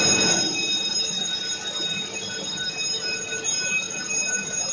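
Fish feed plant machinery running: a steady mechanical drone with several constant high whining tones, a little louder in the first half second.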